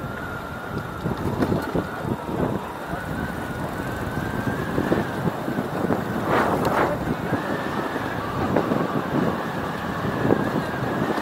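Wind buffeting the microphone during a bicycle ride, in uneven gusts with a stronger gust about six seconds in, over a faint steady high whine.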